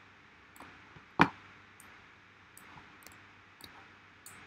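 Computer mouse clicking: one sharp click about a second in and a few faint ticks, over a steady low hiss.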